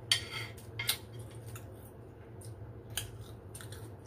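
Metal spoon scraping and clinking against a glass plate while scooping fried rice: a short scrape at the start, then single sharp clinks about a second in and near three seconds, over a low steady hum.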